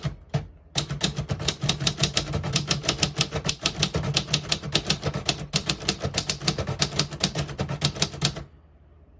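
Keys of a 1954 Royal Senior Companion manual portable typewriter typed in a fast, even run of clacks, several a second, stopping about a second before the end.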